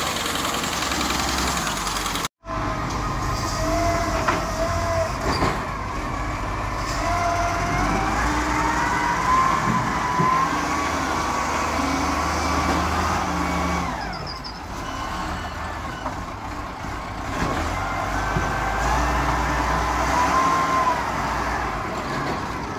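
Diesel engine of a Chenggong ZL30B-II wheel loader running under load as it scoops soil and broken rock, its whine rising and falling in pitch as it works. The sound cuts out for a moment about two seconds in.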